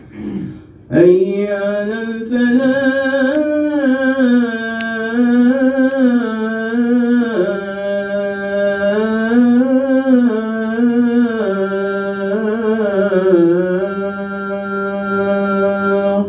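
A man chanting the adhan, the Islamic call to prayer: one long drawn-out phrase, starting about a second in, its pitch winding up and down in ornamented turns.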